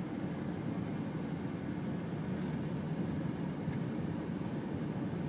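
Steady road and engine noise of a car driving at a constant speed, heard from inside the cabin as an even low rumble.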